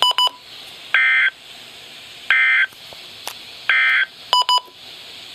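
Emergency Alert System end-of-message data bursts: three short buzzy, warbling two-tone digital bursts about a second and a third apart, marking the end of the flash flood warning. A quick cluster of sharp electronic beeps sounds at the start and again about four seconds in.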